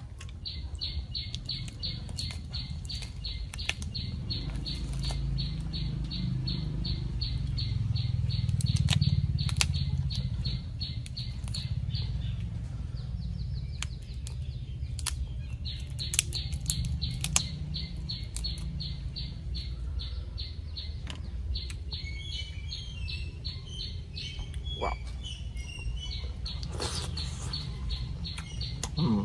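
Hands peeling the shell off a boiled tiger prawn, with scattered crackling clicks of shell and some chewing. Behind it a high chirp repeats about four times a second, pausing briefly about midway, with a low rumble that swells around the middle.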